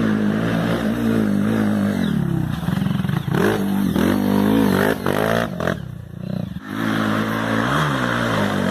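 Dirt bike engine revving up and down under load as it climbs a steep dirt trail slope, its pitch rising and falling. The engine sound drops away briefly about six seconds in, then picks back up.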